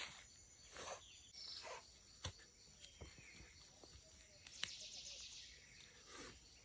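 Faint outdoor ambience with insects, and scattered rustles and a few sharp knocks, the clearest about two seconds and four and a half seconds in.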